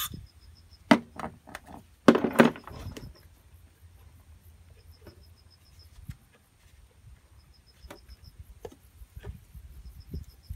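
Carburetor and its fittings on a Honda Dio scooter being wrenched at by hand: scattered clicks and knocks of parts being worked loose, loudest in a cluster about two to three seconds in. The parts are stiff and hard to remove.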